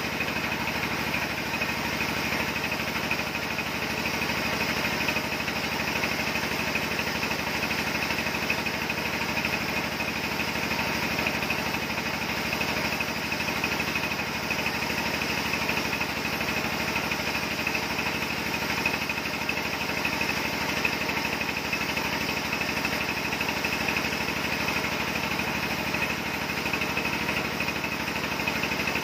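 Band-saw sawmill running steadily as a log of red timber rides through on the carriage: a constant mechanical drone with a steady high whine.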